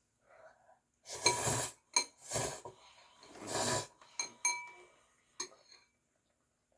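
Metal utensil scraping and clinking against a dish: three rasping scrapes with several sharp, ringing clinks in between.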